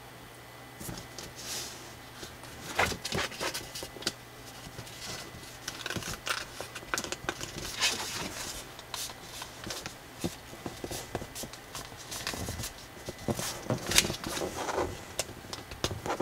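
Thick colored drawing paper rustling and crackling as it is folded and creased by hand, with irregular crinkles and small taps as the folds are pressed flat.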